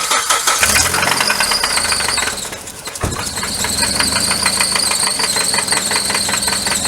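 Car engine starting rough, then settling about three seconds in into a rough idle with a steady, rapid knocking from inside the engine and a high whine. The knock comes from internal wear, with metal debris in the oil pan, which the owner takes to mean the engine is gone.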